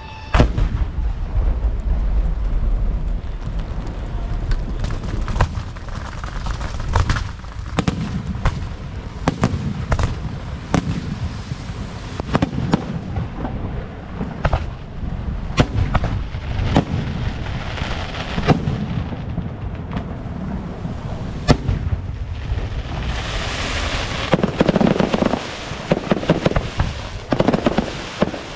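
Fireworks going off: a run of sharp bangs at irregular intervals, several a few seconds apart, over a low rumble, turning into a dense crackling volley near the end.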